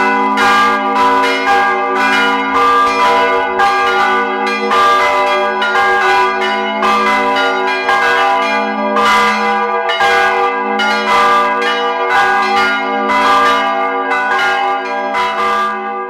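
Several swinging church bells pealing together, their clappers striking over one another in a continuous, uneven stream, each strike ringing on into the next.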